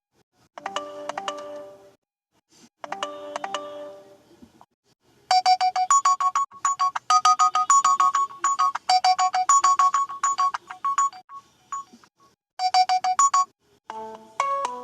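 Samsung Galaxy J2 alarm tones from the Viper OS custom ROM, played one after another. A short chiming phrase sounds twice, then a brighter tone of quick repeated beeping notes runs for several seconds. A new melodic tone starts near the end.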